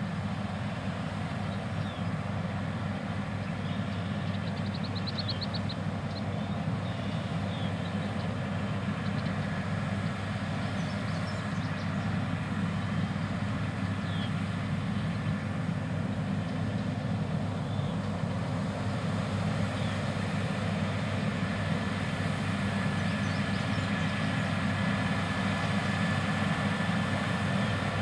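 New Holland CR8090 twin-rotor combines harvesting wheat: a steady, deep machine drone that grows slowly louder. A thin steady whine joins in past the middle, and a few faint high chirps come about five seconds in.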